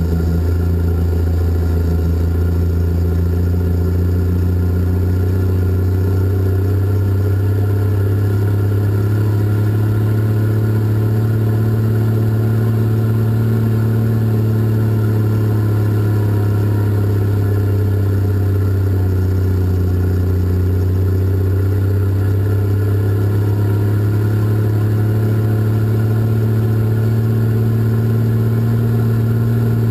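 Caterpillar 627 scraper's diesel engines running steadily with a loud, deep drone, heard from inside the operator's open cab as the machine hauls dirt. The engine pitch sags a little partway through and then comes back up.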